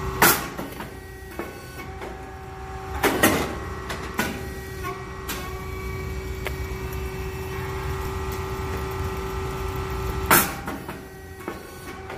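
Puffed rice cake machine running with a steady hum, punctuated by sharp bursts about a quarter second in, a double one around three seconds in, and another about ten seconds in as the heated molds puff and release rice cakes.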